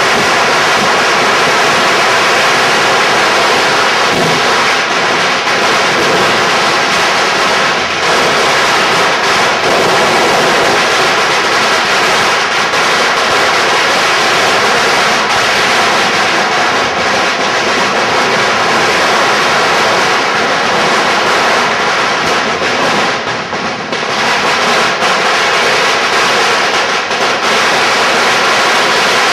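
Dense, continuous barrage of firecrackers and fireworks, blurring into a loud, steady roar of noise with little let-up.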